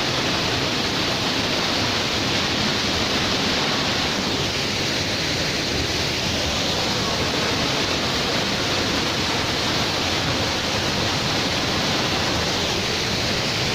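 Waterfall crashing into a pool: a loud, steady rush of falling water.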